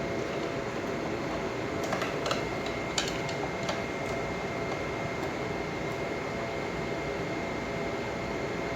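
Steady fan-like mechanical hum with a thin high whine running through it, and a few light clicks between about two and four seconds in.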